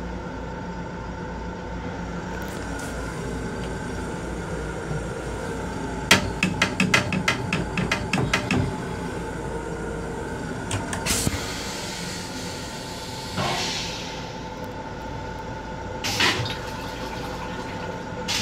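Long Island Rail Road M7 car's restroom toilet flushing: a rapid run of clacks, then a few short hissing rushes as the bowl is cleared, over the steady hum of the rail car.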